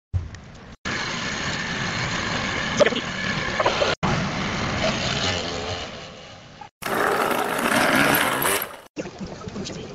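Small two-stroke scooter engines running, heard as a string of short clips that cut off abruptly and change sound about every two to three seconds.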